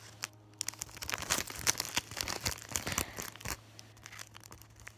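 Plastic-and-foil packaging of a self-inflating balloon crinkling as it is handled: a dense run of crackles that thins out after about three and a half seconds.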